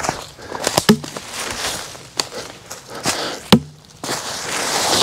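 A long-handled steel-headed hand tool striking into a downed log several times: sharp knocks, the two loudest about a second in and about three and a half seconds in, each with a short ring. Dry leaves rustle near the end.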